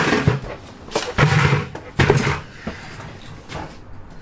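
Knocks and clunks of a dirt bike being heaved up and set onto a bucket used as a stand, with a few short strained grunts from the lifting.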